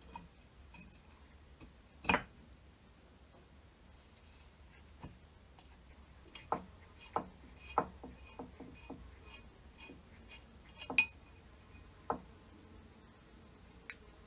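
Scattered metallic clinks and knocks as the parts of a rusty hand-operated car air pump and the tools are handled. There is a loud knock about two seconds in and another about eleven seconds in, and a quicker run of lighter clinks in between.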